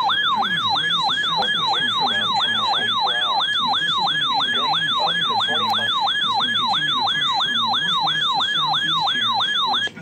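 RadioShack Public Alert weather radio sounding its built-in alert siren: a loud electronic whoop that falls in pitch about three times a second, without a break, then cuts off. It signals that the radio has received an incoming severe weather statement.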